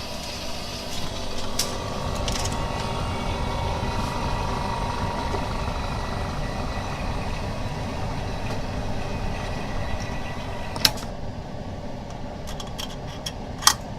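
BM02 edge laminator running a laminating cycle with a steady mechanical hum. A sharp click comes about eleven seconds in, after which the higher hiss drops away, and a second click follows near the end.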